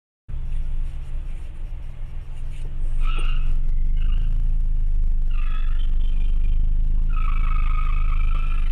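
Car engine and road rumble heard inside the cabin, cutting in suddenly just after the start. A high whining tone comes and goes over it three times, the last time held for more than a second.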